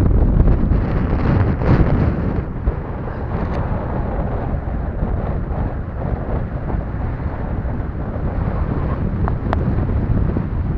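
Wind buffeting the microphone: a rumbling gusty noise, heavier for the first two seconds, then steadier.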